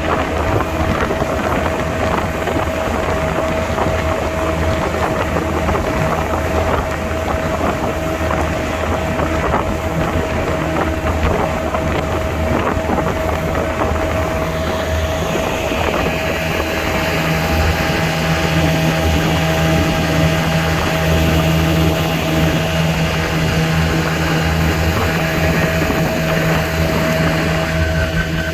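Steady running noise of a moving vehicle with wind, a constant drone under a steady tone. About halfway through a brighter hiss comes in, and a low hum joins soon after.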